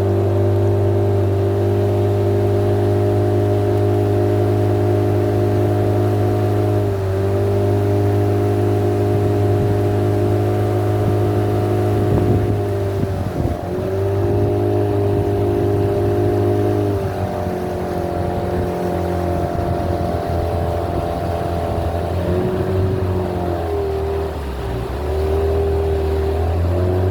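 Boat engine running steadily under way. Its pitch dips briefly about halfway through, then runs lower for a while before picking back up near the end.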